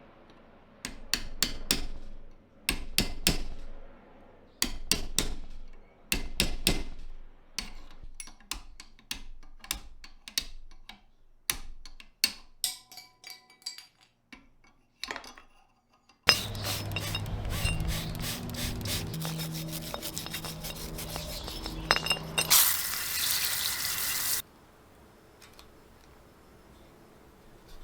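Hammer blows on metal in quick clusters of ringing strikes, thinning to scattered clicks; about halfway through, a louder continuous sound with shifting low tones takes over, ending in a short burst of hiss.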